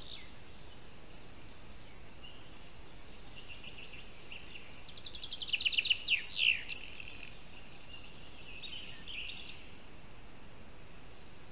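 A small songbird sings a quick trilled phrase about halfway through: a rapid run of notes ending in two or three down-slurred notes. A few softer chirps follow near the end over a steady high-pitched hiss.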